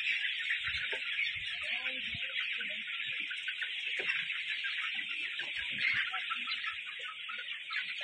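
A large flock of young Misri chickens peeping and chirping together in a dense, steady chorus.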